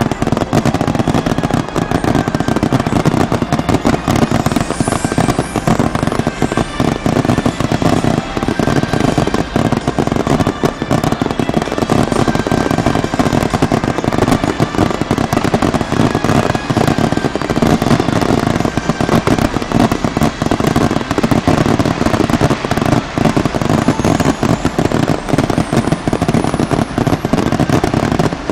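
Fireworks display: a dense, unbroken barrage of bangs and crackling bursts, with a faint rising whistle about five seconds in and again near the end.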